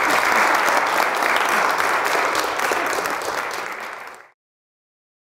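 Audience applauding: a dense, steady clatter of many hands clapping that cuts off abruptly about four seconds in.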